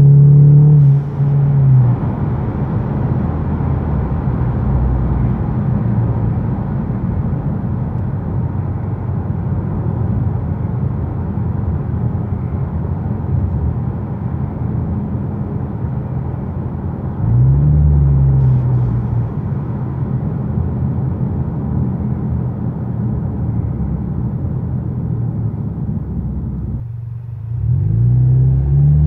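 Engine and aftermarket Magnaflow exhaust of a 2015 Ford Mustang with the 2.3-litre turbocharged EcoBoost four-cylinder, heard from inside the cabin while driving, with steady rumble and road noise. The engine note swells briefly a little past halfway, dips shortly before the end, then rises again as the car accelerates.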